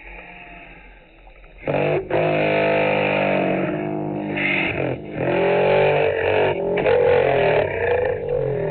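Faint background noise, then loud music with a wavering melody and a distorted sound that starts abruptly about two seconds in and continues with brief breaks.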